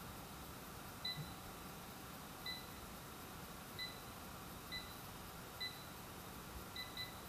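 Chiwawa CAF-606 air fryer's control panel beeping, one short high beep for each button press as the temperature and cooking time are set. Seven beeps, spaced about a second apart, the last two in quick succession.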